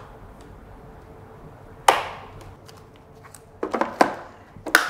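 Hard plastic clicks and knocks from hands working on a Xiaomi Mi Robot Vacuum Mop Pro: one sharp click about two seconds in, then a quick run of smaller knocks near the end.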